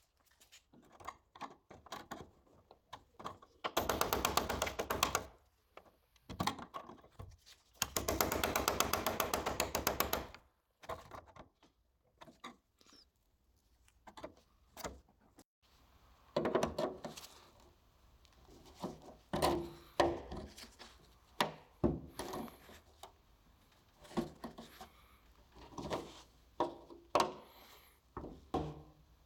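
Metalwork on a Citroën 2CV's steel body: two bursts of a rapidly rattling power tool about four and eight seconds in, then a series of separate hammer knocks on steel.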